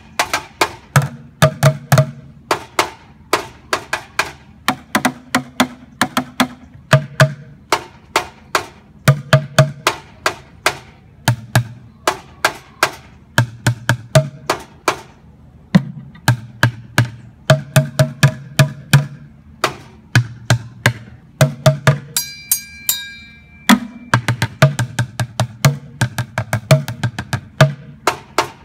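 Homemade drum kit of upturned plastic paint buckets, a metal can and a hanging galvanized bucket, beaten with wooden drumsticks in a rhythmic, cheerful beat of deep bucket thuds and sharper hits. About three-quarters through the beating stops for a second and a half while a high ringing tone sounds, then the beat picks up again.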